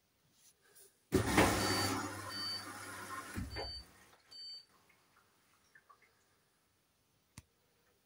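Hoover washing machine control panel beeping: four short high beeps as the buttons are pressed to start the duvets and quilts cycle, over a louder rushing hum that lasts a couple of seconds. A single sharp click comes near the end.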